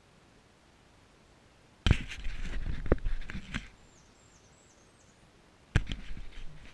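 Sudden knocks followed by rustling and scraping of shrub leaves and twigs close to the microphone, in two bursts: one about two seconds in lasting nearly two seconds, and a shorter one near the end.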